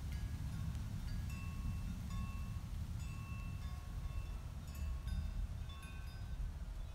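Wind chimes tinkling: single metal tones at several different pitches struck at irregular moments, each ringing briefly, over a steady low rumble.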